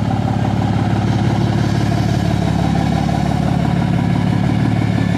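Fourth-gen Ram's 6.7 Cummins inline-six turbo-diesel running cold, soon after a cold start at about 30 degrees, as the truck rolls past at low speed. It runs steadily with a whine that sounds like it's getting ready for takeoff.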